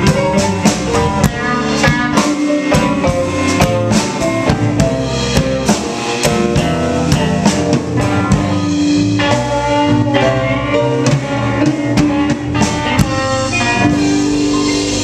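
Live blues band playing an instrumental stretch without vocals: guitar over a steady drum-kit beat.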